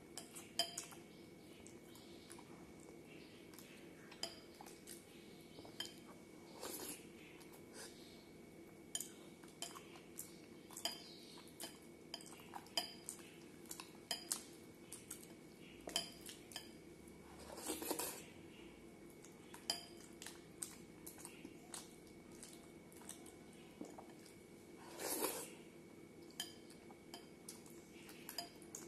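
Hand-eating from a glass bowl of milk-soaked bread: frequent light clinks of fingers against the glass, with a few longer wet slurps as milk and bread are sucked off the fingers.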